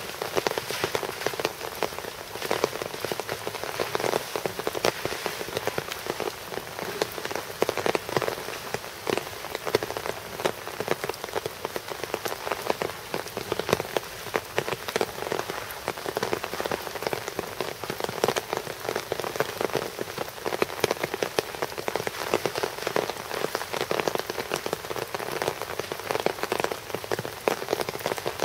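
Steady rain falling, with many sharp individual drop hits close by.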